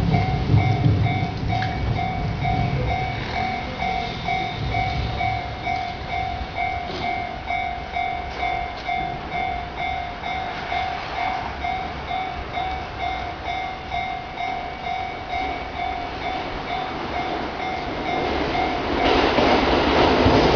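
Railway level-crossing warning bell ringing steadily at about two dings a second. A passing electric train rumbles at the start and fades, and near the end another train approaches and its noise swells over the bell.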